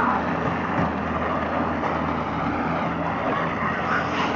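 Steady rumble of wheels rolling over asphalt, with a low hum underneath.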